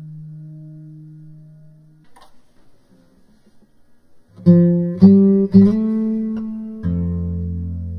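Background music on guitar: a held note fades out about two seconds in, then after a quiet pause three loud struck chords come in quick succession about halfway through, followed by a longer chord that rings on to the end.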